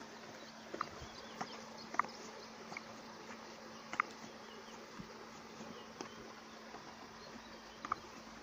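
Horse licking and mouthing a border collie's fur at close range: soft wet tongue-and-lip clicks every second or two, two of them sharper, over a steady low buzzing hum.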